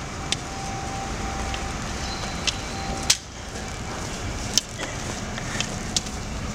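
Street ambience on a stone-paved street: a steady low rumble with sharp taps every second or two, and a faint steady hum that cuts off about three seconds in.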